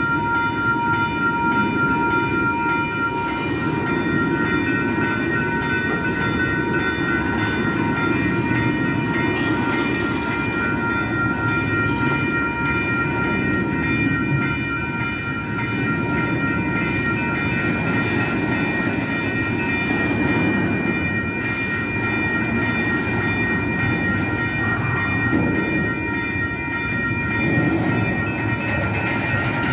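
Double-stack container freight train rolling past at close range: a steady rumble of steel wheels on rail from the passing well cars, with steady high-pitched tones ringing above it.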